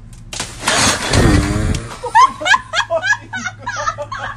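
A crash lasting about a second and a half as a hanging hammock chair falls to the ground with a man in it, followed by bursts of laughter.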